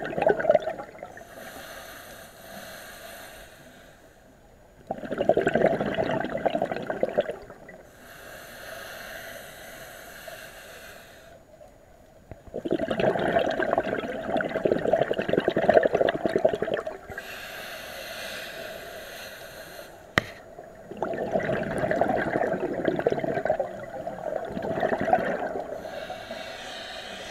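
Scuba diver breathing through a regulator underwater: a thin hiss on each inhale, then a loud rush of bubbles on each exhale, about three full breaths with each out-breath lasting two to four seconds.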